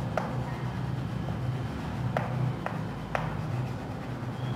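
Chalk writing on a blackboard: faint scratching strokes with a few sharp taps as the chalk meets the board.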